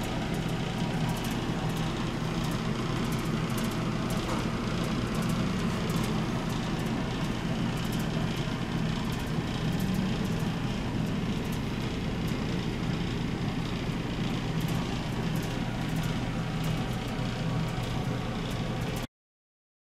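A steady low mechanical hum with a hiss over it, cutting off suddenly near the end.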